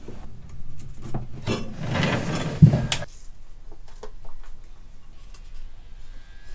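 Stainless steel exhaust pipe sections being handled and fitted together: light metallic clinks and knocks, with a stretch of rubbing and scraping that ends in a sharper knock about two and a half seconds in.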